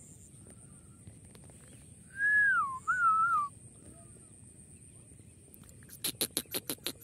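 Watercock calling: a fast run of short, evenly spaced notes, about six a second, starting near the end. Earlier, about two seconds in, a clear whistle slides down, then wavers for about a second and a half.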